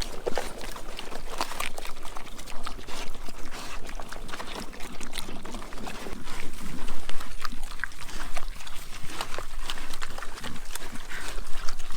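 Pigs eating food scraps, a dense run of irregular short smacks and clicks.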